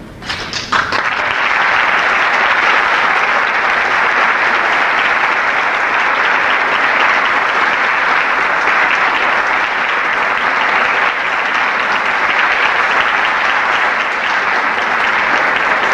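Audience applauding. A few scattered claps come first, then within the first second it builds to full, steady applause.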